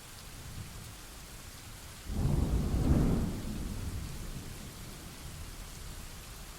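Steady rain with a clap of thunder about two seconds in: a sudden low rumble that peaks a second later and rolls away over the following few seconds.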